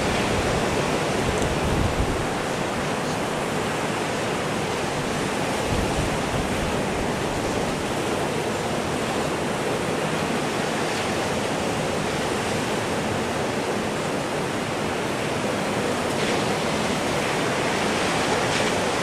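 Ocean surf, waves breaking and washing up the beach in a steady, unbroken rush.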